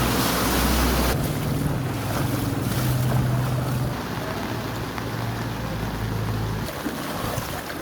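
Wind buffeting the microphone over a steady rushing noise, with a low hum underneath.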